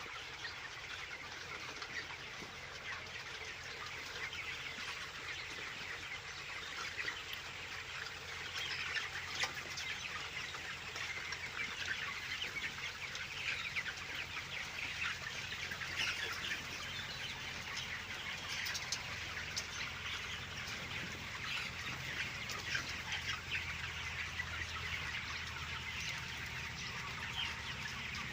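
A shed full of broiler chickens, many birds peeping and clucking at once in a continuous chatter, over a low steady hum.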